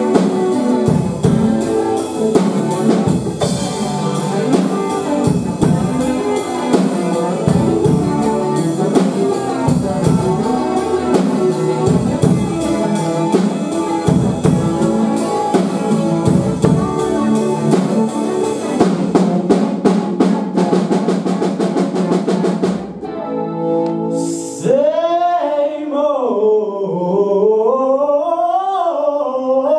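Live rock band: electric guitar and drum kit playing a driving passage that speeds into rapid repeated strokes and breaks off. About three-quarters of the way through, a young male voice starts singing over lighter guitar.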